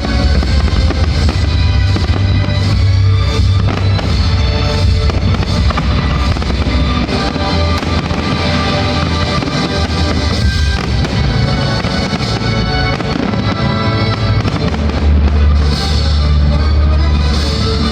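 Fireworks bursting during a pyrotechnic show, over loud music with a heavy bass.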